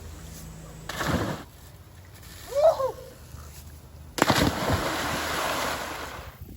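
Kayak paddle splashing in river water: a short splash about a second in and a longer stretch of splashing from about four seconds in. A brief pitched call in between is the loudest moment.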